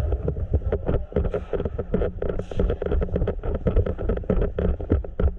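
Wind buffeting the microphone as a low rumble, with a dense, irregular clatter of sharp clicks and knocks.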